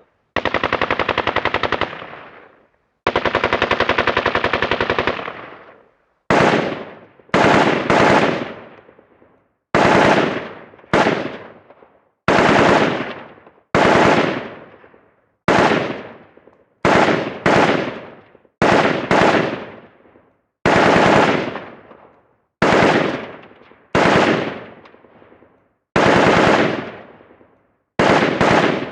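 AK-47 assault rifle firing on full automatic: two long bursts of about two seconds each, then a string of short bursts of a few rounds every second or two, each tailing off slowly.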